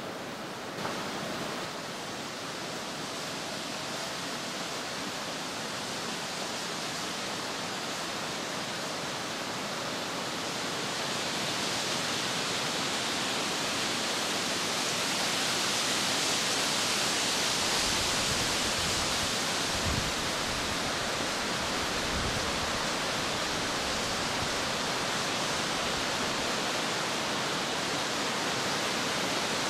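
Steady rushing noise that swells a little past the middle, with a few soft low thumps.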